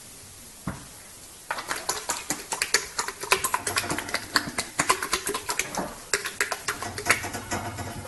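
Horse working its lips and tongue, making a rapid, irregular run of wet clicks and smacks that starts about a second and a half in, after a single click.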